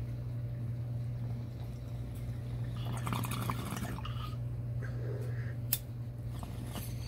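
Water bubbling in a small glass bong as a hit is drawn through it, for about a second, over a steady low hum. A few softer gurgles follow, then one sharp click.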